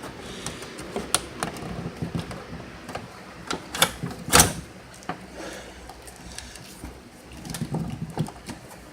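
Hands handling electrical wiring: scattered clicks, taps and rustles, with two louder knocks about four seconds in.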